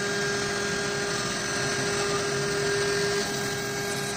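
Avid CNC router running steadily as its bit mills a pocket in a wooden board: a continuous high-speed whine over the sound of the bit cutting wood.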